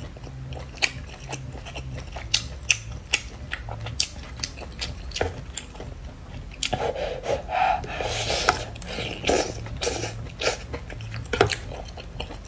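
Close-up eating sounds of a person with a mouthful of noodles: wet chewing clicks and lip smacks throughout, with a longer stretch of slurping from about 7 to 10 seconds in as noodles are drawn into the mouth.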